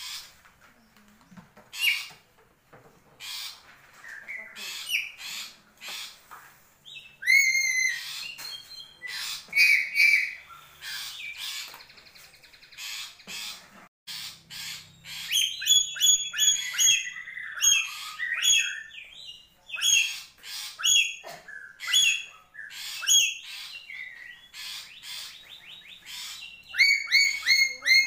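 Black-capped lory calling: a long string of short, loud squawks and whistled notes, with a quicker run of rapid chattering notes about halfway through.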